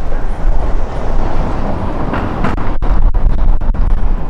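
Gusty wind buffeting the microphone, a loud, heavy low rumble that swells about two seconds in, over a general urban street background.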